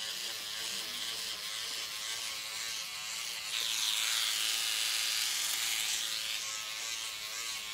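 SkinPen microneedling pen buzzing steadily as it is worked over the skin, its pitch wavering. The buzz gets a little louder and brighter about three and a half seconds in.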